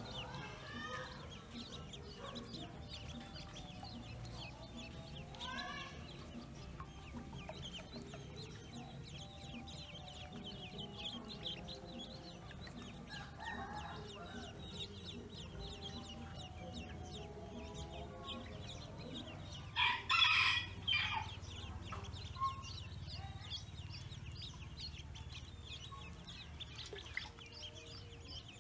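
Pekin ducklings peeping constantly, a dense stream of short high chirps. About two-thirds of the way through, a louder bird call cuts in for a second or so.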